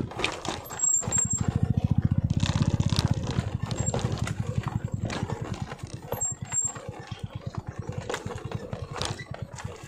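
Motorcycle engine running at low speed with a rapid, even putter, louder for the first few seconds and then easing off, with scattered knocks and rattles from the bumpy ride.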